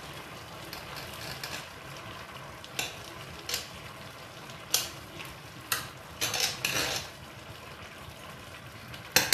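Spoon stirring a pot of beans porridge and yam, scraping against the pot in a handful of short strokes over the steady hiss of the pot simmering on the fire. A quick clatter of metal on the pot comes right at the end.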